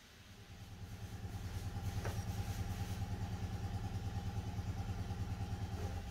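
A small engine running with a fast, even pulsing beat. It rises over the first two seconds and then holds steady. A light click comes about two seconds in.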